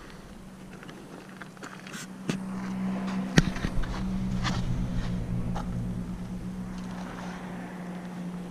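A steady, low motor hum that comes in about two seconds in and then eases slightly, with a few sharp clicks, the loudest a snap about three and a half seconds in.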